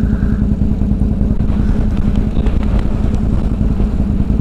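ATV engine running steadily with an even, rapid pulsing and no change in pitch.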